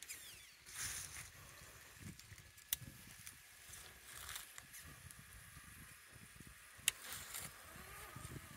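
Radio-controlled scale crawler working over a ramp of wooden poles: quiet scraping and knocking of its tyres and chassis on the wood, with two sharp clicks, one about a third of the way in and one about two-thirds through.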